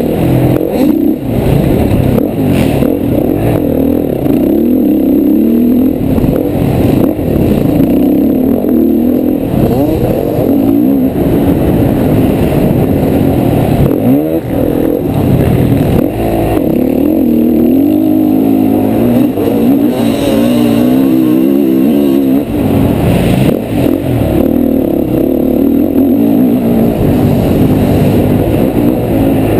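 Honda CRF450R's single-cylinder four-stroke engine being ridden hard. Its pitch climbs and falls again and again as the throttle is opened and closed, with a few short throttle-offs.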